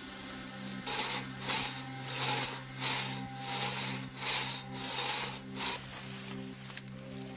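Hand crosscut saw cutting through wood in about eight even strokes, one every 0.6 to 0.7 s, stopping a little before the end, over steady background music.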